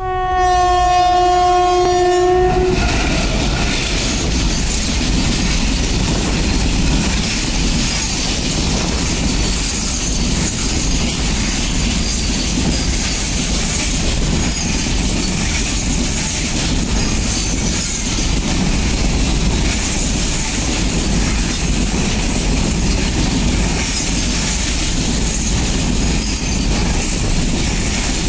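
A WAG-7 electric locomotive sounds one long, steady horn blast as it arrives. Then its train of BCNA covered freight wagons rolls past close by with a continuous rumble and clickety-clack of wheels over rail joints. Faint high wheel squeals come now and then.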